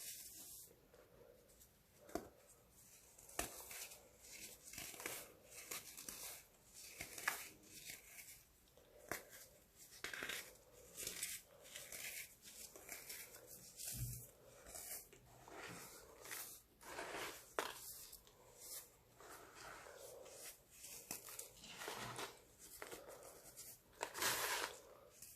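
Slabs of baking soda being crushed and crumbled, an irregular series of crunches and crackles.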